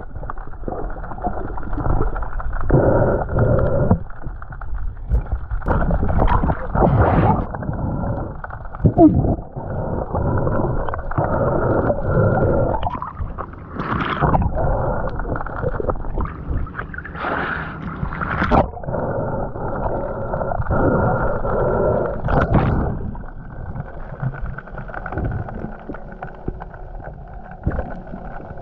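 Muffled underwater noise picked up by a camera in a waterproof housing as a diver swims: a rushing water sound that swells and fades irregularly, with a few short, sharper knocks.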